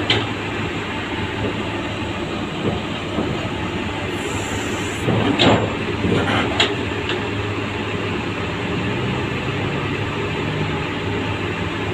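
A heavy machine's diesel engine running steadily, with a few short, sharp metallic sounds from steel parts, the loudest about five and a half seconds in.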